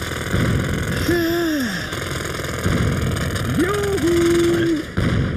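Pneumatic jackhammer hammering steadily into a road, with a short break near the end. A voice hums or groans twice over it: first a rising-then-falling note, later a note that rises and is held.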